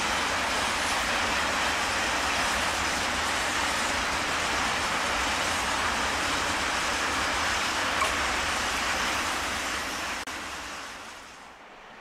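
Freight train of open wagons rolling past, a steady noise of wheels and wagons on the rails. It fades away as the last wagon passes near the end.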